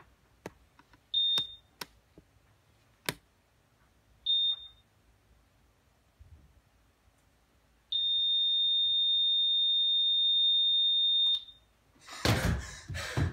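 High electronic beep tone: two short beeps about three seconds apart, then one long steady tone lasting about three and a half seconds that cuts off suddenly. A few faint knocks sit between them, and near the end loud music starts.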